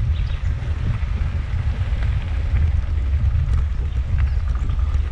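Wind buffeting the microphone of a camera on a moving mountain bike: a loud, steady low rumble, with faint ticks and rattles over it.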